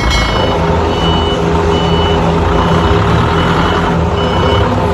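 Hangcha 2.5-tonne forklift running, its engine humming steadily while its warning alarm beeps at an even pace, a little more than once a second.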